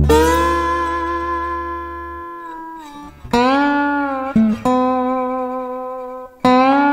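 Slide guitar playing the opening phrase of a slow blues: a few long, ringing notes that waver and glide in pitch, each left to fade, with fresh notes struck about three seconds in and again near the end.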